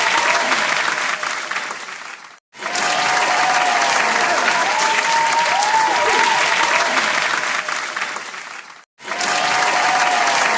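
A crowd applauding, with a few rising-and-falling calls heard over the clapping. A short recorded clip is played on a loop: it fades out about two seconds in, breaks off into brief silence and starts again, then fades and restarts once more near the end.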